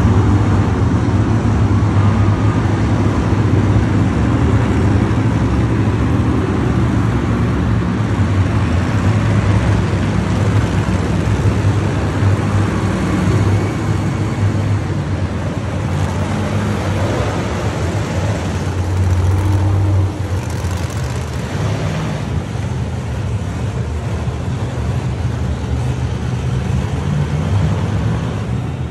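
Monster truck engines running loud in an indoor arena, a deep steady rumble that eases off a little about two-thirds of the way through.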